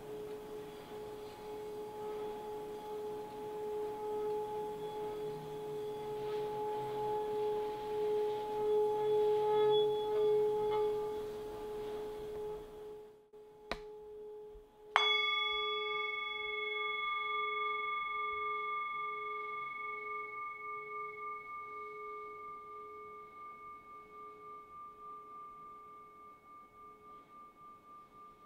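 Brass singing bowl resting on a person's belly, sung with a wooden mallet so its steady hum swells and wavers. About halfway through it is struck once, and brighter, higher tones ring out and fade slowly, pulsing.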